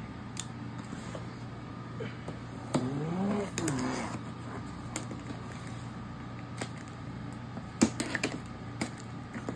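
Scattered sharp clicks and light taps as a knife works at the plastic shrink wrap on a fireworks assortment box, the loudest click about eight seconds in. A short voice-like sound rises and falls around three seconds in, over a steady low hum.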